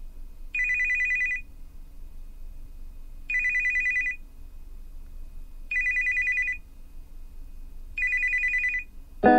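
A telephone ringing four times, about two and a half seconds apart. Each ring is a rapid two-tone trill just under a second long.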